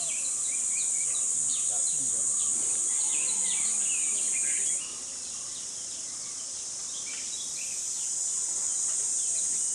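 Insects droning steadily at a high pitch, with many short bird chirps over the drone in the first half. About five seconds in, the drone drops abruptly in level, then slowly rises again.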